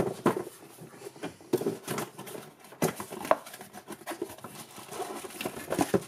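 Cardboard box and the plastic bag around a new golf cart forward/reverse switch being handled and rustled: a run of irregular crinkles, scrapes and light taps.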